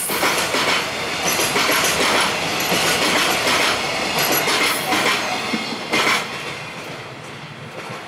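Wheels of a long container freight train's wagons rolling over rail joints in a clickety-clack as the last cars go by, with one loud clack about six seconds in; the sound then fades as the train pulls away.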